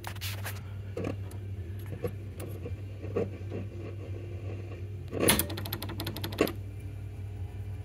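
Grundig Majestic valve console radio getting no reception: its speakers give a steady low hum with irregular clicks and crackles, and a quick run of clicks about five seconds in as the push-button band switches are worked. The set is faulty, with an EF89 valve that has no filament.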